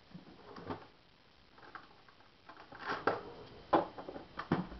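A few short, irregular clicks and rustles of objects being handled, the loudest in the last two seconds.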